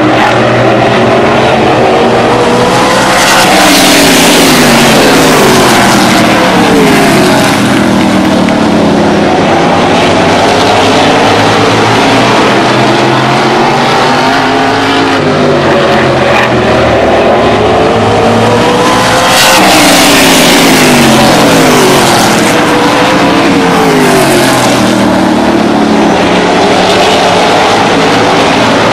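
A field of open wheel modified race cars' V8 engines running at racing speed, their pitch climbing and falling again and again as they go through the turns and down the straights. The pack is loudest passing close by twice, about three seconds in and again about nineteen seconds in.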